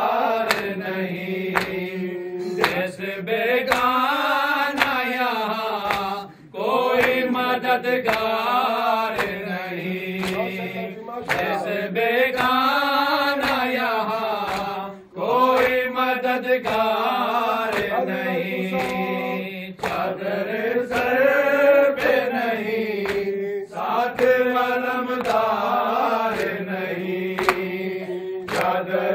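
A group of men chanting an Urdu noha (a Shia lament) together in long melodic lines, led at a microphone, with regular chest-beating slaps (matam) keeping the beat.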